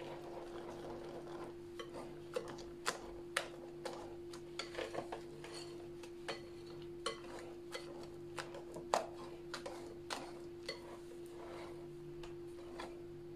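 Wire whisk stirring thick cake batter in a glass bowl, its metal wires clicking irregularly against the glass. A steady low hum runs underneath.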